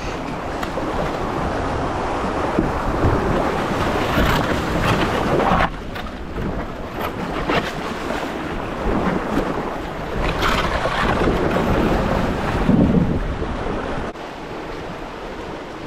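Whitewater rushing around a kayak as it is paddled through a shallow rocky rapid, with occasional paddle splashes and wind buffeting the microphone.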